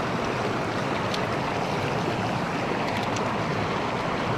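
River water rushing steadily over the shallows, an even hiss with a couple of faint ticks.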